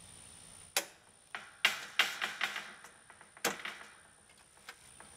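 Sharp metal clicks and clacks as the steel safety pin is test-fitted through the drilled hole in the gate's latch assembly and trigger arm, a quick string of them between about one and three and a half seconds in, then a few faint ticks.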